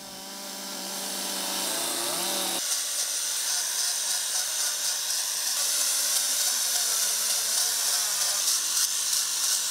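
Hand-held electric grinders carving and sanding wood sculptures, giving a steady, high-pitched whine that fades in over the first couple of seconds.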